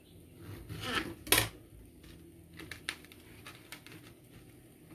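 Kitchen knife knocking and cutting on a plastic cutting board as small tomatoes are cut: one sharp knock about a second and a half in, then a few faint clicks and taps.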